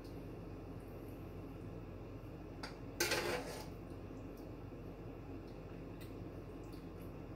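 Kitchen dishes and food containers being handled on a counter: a few light clicks and one brief clatter about three seconds in, over a low steady hum.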